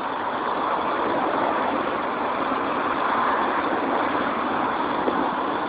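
Container freight train's loaded flat wagons rolling past, a steady noise of steel wheels running on the rails, with one light clack about five seconds in.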